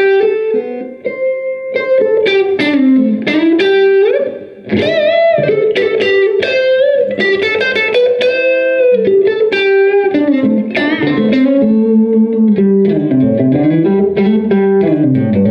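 James Tyler Variax JTV-69 electric guitar through a Line 6 Spider Valve MKII on its Crunch Blue model, an Orange AD30TC-style crunch tone. It plays a single-note lead line with string bends and vibrato, dropping to lower notes near the end.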